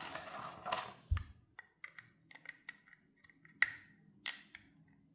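Small 3D-printed plastic engine parts, the sliding valves, clicking and tapping against each other and the cylinder parts as they are handled and tried for fit. There are scattered light clicks, a dull knock about a second in, and two sharper clicks later on.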